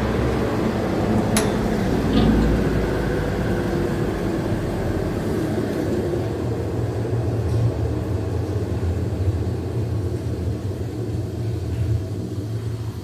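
Wolfking C-250 industrial frozen-meat grinder running with a steady machine hum, with a sharp click about a second and a half in. The sound begins to fade near the end.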